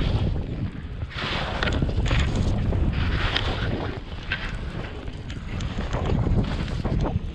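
Wind buffeting the microphone, with skis hissing through fresh snow in several separate swishes as the skier turns down the slope.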